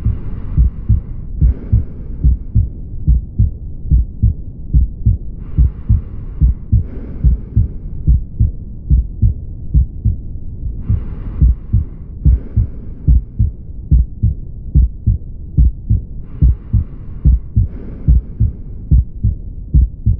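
Heart sounds heard through a stethoscope: a steady lub-dub beat with the early diastolic blowing murmur of aortic regurgitation. Soft breath sounds come in pairs every five to six seconds.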